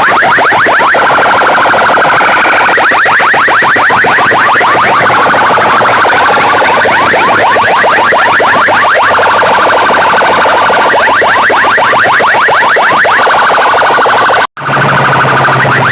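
Rapidly repeating electronic siren-like chirps played very loud through a big DJ sound-box PA system. The sound cuts out for a split second near the end and comes back with a steady low hum underneath.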